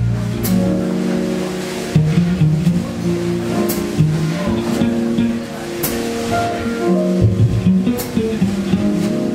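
Jazz combo playing: a double bass plucked pizzicato, walking through deep notes, with keyboard chords and light cymbal strokes about every two seconds.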